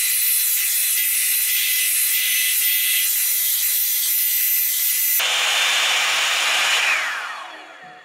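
Revlon One-Step hot-air paddle-brush dryer switched on at its cool setting, its fan blowing with a steady hiss and a thin whine. About five seconds in its sound shifts lower. Near the end it is switched off, the whine falling in pitch as the motor spins down.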